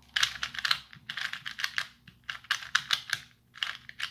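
Magnetic 3x3 speed cube being turned by hand in quick runs: rapid plastic clacking of the layers snapping into place, in several bursts with short pauses between them.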